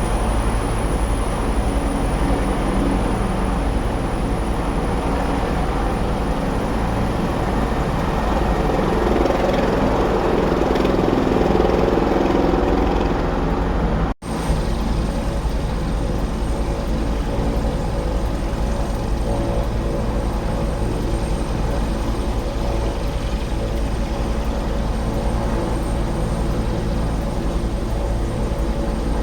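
Steady engine rumble, growing louder about ten to twelve seconds in, then cut off for a moment about fourteen seconds in before carrying on steadily.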